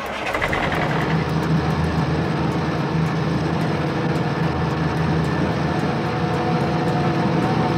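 Heavy truck engine running steadily, a sound effect that starts abruptly and holds at an even level.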